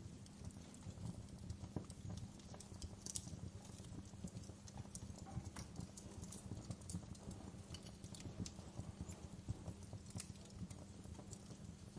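Wood fire crackling, with irregular sharp pops and snaps over a low steady rumble of the flames.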